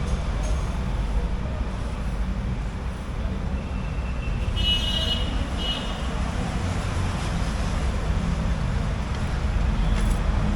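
Steady road-traffic noise, with a vehicle horn tooting twice in quick succession about halfway through.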